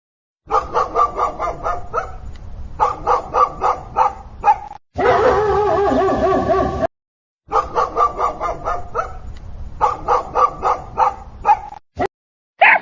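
Dogs barking in quick, evenly repeated barks, about four a second, in separate bursts broken by abrupt cuts. About five seconds in, a dog gives a drawn-out wavering cry for about two seconds.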